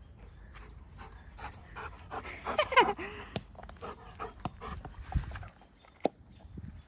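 Golden retriever puppy panting, with a few short sharp clicks and a louder pitched sound about two and a half seconds in.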